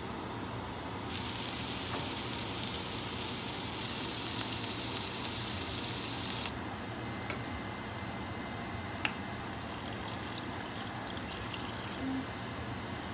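Pork belly sizzling in a hot non-stick frying pan: a loud, even hiss that starts suddenly about a second in and cuts off around six seconds in, followed by fainter crackling and spitting. Near the end there is a short splash as water is poured onto the seared pork in a saucepan.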